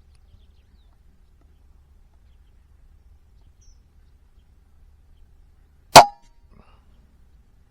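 A single shot from a Weihrauch HW100 .20 PCP air rifle with its Weihrauch silencer, a sharp crack about six seconds in with a brief metallic ring, followed by a faint knock.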